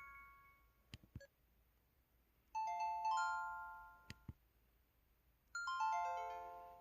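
KTF-X3500 mobile phone playing two short electronic tone jingles, each a quick run of bright chiming notes that fades out, the second stepping down in pitch. Faint clicks come between the jingles.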